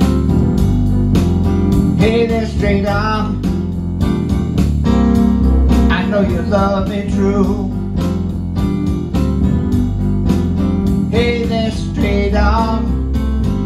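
Music: a steady bass-and-drum backing under a guitar-voiced lead played on a Yamaha keyboard, in three phrases of bending, wavering notes.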